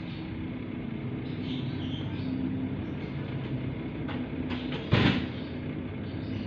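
Steady low rumble, with a few light clicks about four seconds in and one loud knock about five seconds in.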